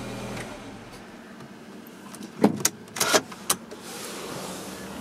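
Mini Cooper 1.6's four-cylinder petrol engine idling, then switched off about half a second in. A few sharp clicks and knocks follow a couple of seconds later as the car's door is opened.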